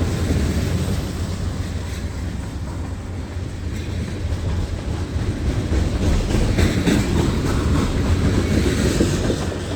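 Freight cars of a CSX mixed freight train rolling past, a steady low rumble with the wheels clicking over rail joints.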